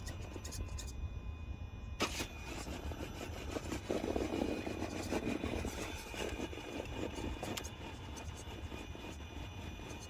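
Axial Capra RC rock crawler with a 4600kv brushless motor whirring as it crawls up rock. There is a sharp click about two seconds in and a louder stretch of grinding and scrabbling from about four to six seconds, over a steady low rumble.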